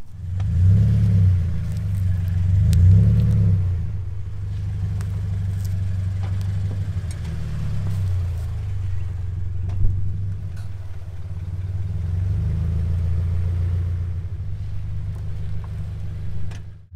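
Car creeping forward at low speed, its engine a low rumble that swells twice in the first few seconds and then runs steadily as the tyre rolls over a soft fake spider. Faint scattered ticks, with one sharper tick about ten seconds in.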